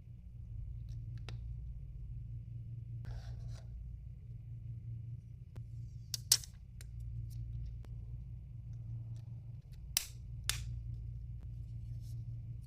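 Handling noises while unboxing a DJI Osmo Pocket 3 and its accessories: a brief rustle of packaging about three seconds in, then sharp plastic clicks, one about halfway through and two close together near the end, over a steady low hum.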